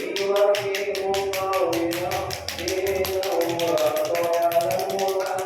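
Rapid, steady patting of a hand on a patient's body, several slaps a second, a therapeutic tapping meant to get the blood flowing. A melodic Quran recitation chants underneath.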